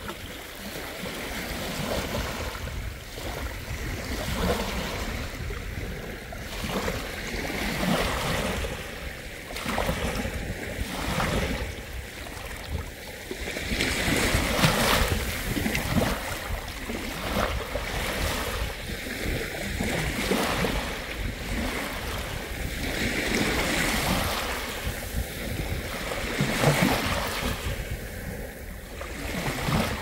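Ocean waves breaking and washing up a beach, the surf swelling and easing every few seconds, with wind rumbling on the microphone.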